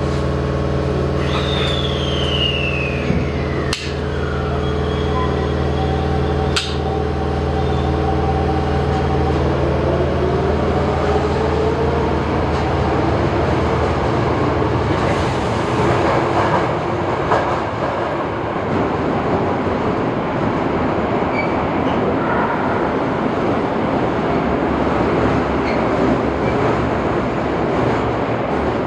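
A Toei 5300 series subway train pulls out of the station. Its electric drive hums steadily at first, then a high inverter whine slides down in pitch, with two sharp clicks. The traction motors' tones rise as it accelerates, and they give way to the rumble of the train running away along the track. This is the loud drive sound the train is known for.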